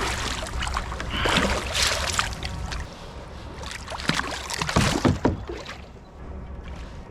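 Water splashing and handling noises at a kayak in irregular bursts as a small sturgeon is brought in alongside, with a few sharp knocks; the loudest bursts come about four to five seconds in.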